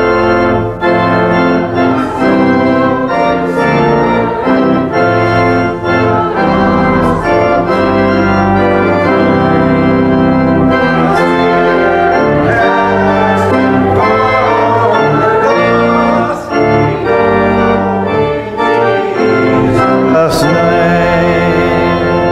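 Church organ playing the accompaniment to a hymn, full held chords moving from one to the next every second or so.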